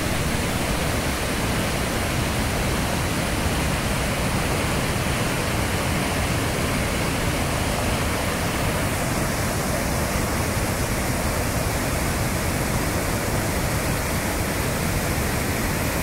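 Waterfall rushing: a steady, even noise of falling water. About halfway through, the highest hiss softens slightly.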